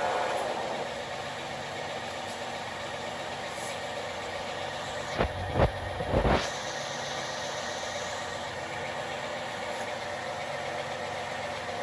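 Engine lathe running with a steady mechanical hum, the louder cutting noise dying away in the first second. Three brief knocks come about five to six and a half seconds in.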